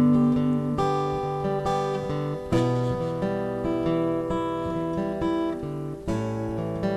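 Acoustic guitar strumming and letting chords ring in an instrumental gap of a folk-country song, with a few fresh strums spaced a second or more apart. The last sung note fades out in the first second.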